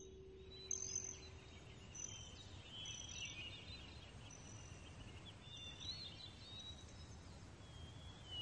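Faint chirping and twittering of birds: short high whistled notes every second or so, with quicker warbling notes in between, over a low steady rumble.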